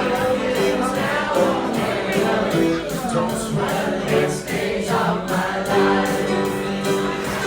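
A crowd singing along in chorus to piano-bar music with a steady beat.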